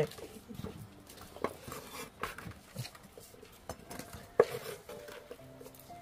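Kitchen knife cutting raw potato into chunks on a thick round wooden chopping block: a few irregular knocks of the blade meeting the board, the loudest about four seconds in.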